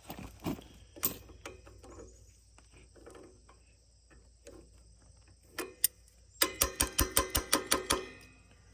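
Hand tools working on metal: scattered light clicks, then a quick run of about ten sharp metallic taps, each with a brief ring, near the end.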